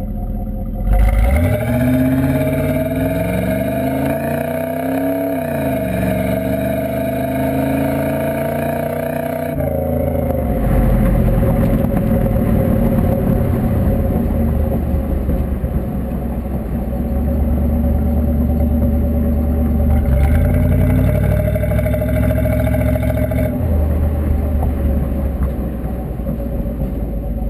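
1985 Pontiac Trans Am's V8 exhaust while driving. About a second in it opens up, with the engine note climbing as the car accelerates. It eases off after a few seconds and then runs at a steady cruise, the note shifting a few times.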